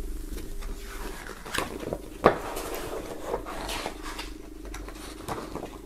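A folded paper poster being handled and opened out on a wooden tabletop: paper rustling with a few light taps and clicks, the sharpest about two seconds in, over a faint steady hum.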